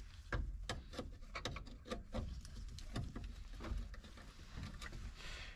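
Scattered small clicks, taps and scrapes of hand tools against the dashboard's metal and plastic as a small screw is worked out.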